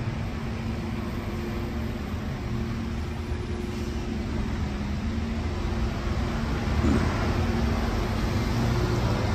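City street traffic: cars and vans running along the road, a steady low engine hum that grows gradually louder toward the end.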